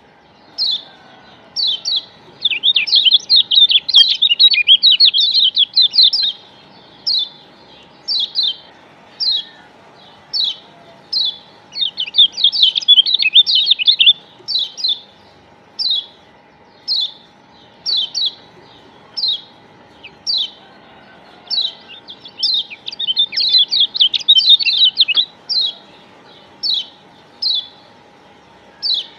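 Kecial kuning (Lombok yellow white-eye, Zosterops) calling: short high call notes repeated about once a second, broken three times by a few seconds of fast, high twittering. It is a pancingan lure recording, played to set other kecial singing.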